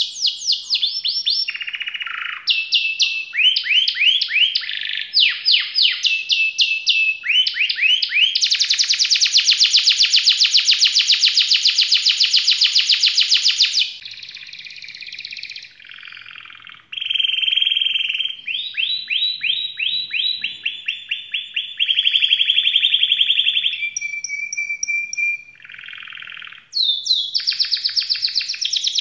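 Domestic canary singing a long song of rapid trills and rolls in repeated phrases, with a long, fast, loud trill in the middle. The song goes quieter for a few seconds partway through, then returns to trills with a short steady whistle near the end.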